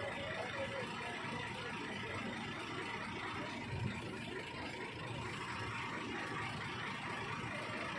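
Mobile crane's diesel engine running steadily under a lift, a constant low drone with no change in pace.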